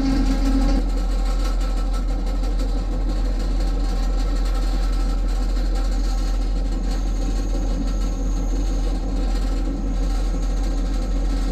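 Train riding along the track, a steady low rumble with rail and running noise. A steady tone heard at the start fades out about a second in.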